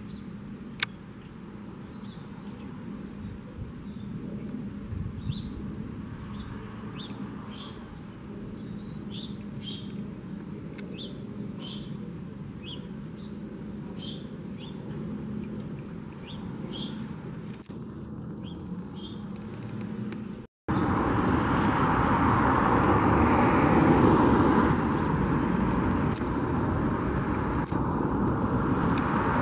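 Steady distant jet-engine rumble from a climbing Boeing E-3 Sentry AWACS, with small birds chirping over it again and again. About two-thirds of the way through, the sound cuts and much louder jet-engine noise takes over, from a KLM Boeing 787 airliner climbing out.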